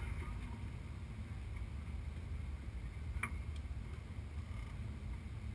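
Wind rumbling on the microphone, with a single short click about three seconds in.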